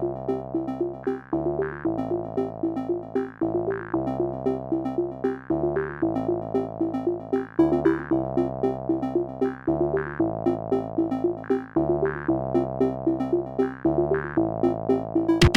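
Electronic background music: a synthesizer riff of quick repeating notes over a steady beat, with sustained bass notes that change every second or so.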